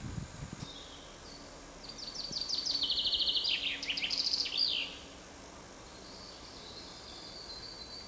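A songbird singing a rapid, high trilled phrase of quickly repeated notes ending in fast downward slurs, from about two to five seconds in. A fainter high twittering follows near the end.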